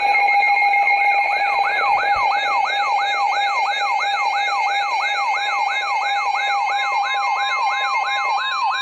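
Electronic emergency-alert siren tone: a rapid falling whoop repeated about three times a second over steady high tones. It is the alert sounding at the start of a severe thunderstorm warning broadcast.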